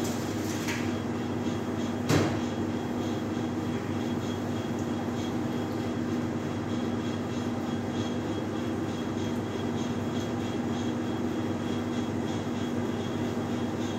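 Steady droning hum of kitchen ventilation, with a constant low tone and a faint high whine. A single sharp clank stands out about two seconds in, and faint clinks follow.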